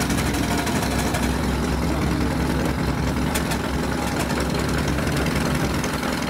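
An engine running steadily at idle, a continuous low rumble with a fast even beat and a steady hum.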